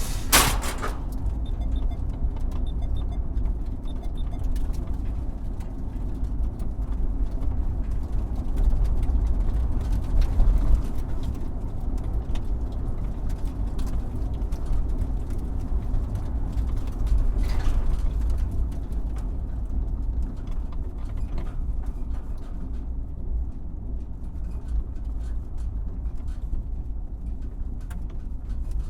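A car driving over a bumpy road: a steady low rumble from the engine and tyres. It is broken by occasional knocks from the body and suspension, a sharp one just after the start and another about two-thirds of the way through.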